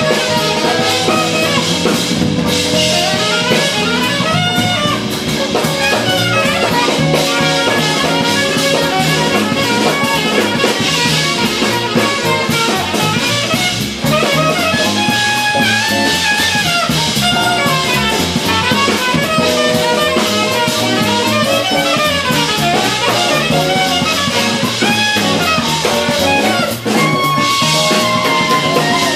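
Live jazz-fusion band playing: a saxophone carries a running lead line over electric bass, electric guitar, keyboard and a drum kit.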